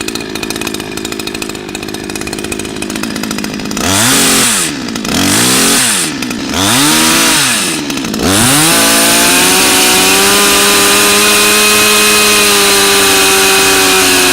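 Sadko GCS 510E two-stroke petrol chainsaw running just after starting: it idles for about four seconds, is revved up and let back down three times, then is held at high revs.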